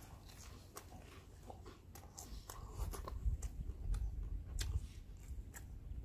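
Close-up eating of crispy fried whole chicken: chewing with scattered small crunches and wet mouth clicks, fairly quiet.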